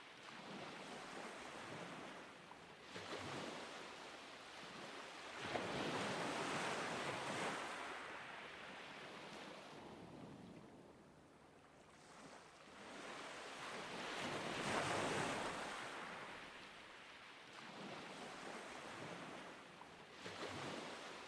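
Ocean waves washing in and out, each surge swelling and fading over roughly eight seconds.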